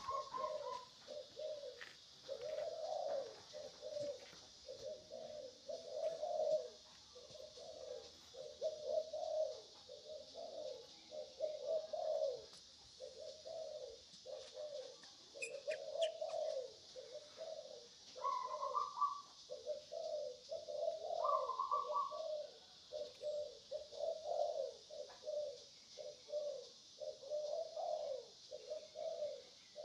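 Doves cooing over and over in an unbroken run of short, low coos, with a couple of higher calls in the middle, over a steady high hiss.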